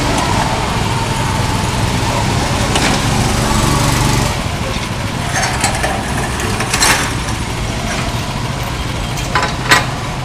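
Go-kart's small gasoline engine running steadily, its note dropping about four seconds in, with a few sharp clacks in the second half, the loudest near the end.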